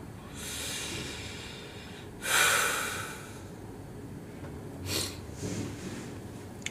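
A man's heavy breathing through the nose: a soft exhale near the start, a loud, sudden one about two seconds in, and two shorter breaths around the five-second mark.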